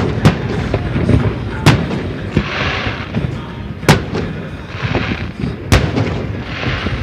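Fireworks display: aerial shells bursting in four sharp bangs about two seconds apart, over a constant low rumble. Three short hissing bursts fall between the bangs.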